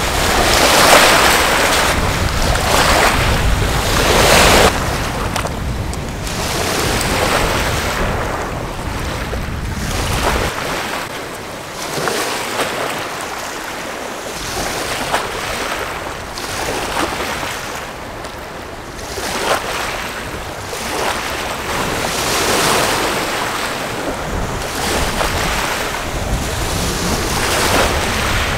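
Small lake waves washing onto the shore, with wind gusting over the microphone. The low wind rumble is heavy for about the first ten seconds, drops away, and comes back near the end.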